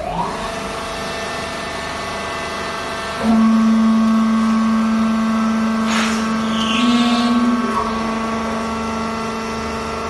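Hydraulic power unit of a vertical fiber clothes baler running with a steady, multi-toned hum. About three seconds in its note gets clearly louder. It steps up slightly shortly before eight seconds and then eases back.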